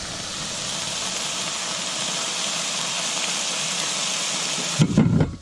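Chickpeas, kale and tomatoes sizzling steadily in oil in a frying pan over a portable gas stove. A short burst of voice cuts in near the end.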